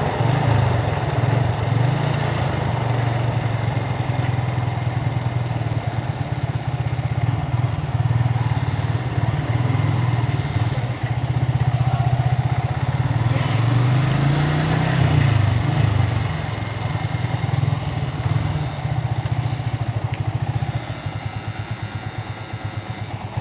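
Yamaha Vixion single-cylinder motorcycle engine running under way. Its pitch rises and falls once around the middle, and near the end it drops to a quieter, even pulsing as the engine slows toward idle.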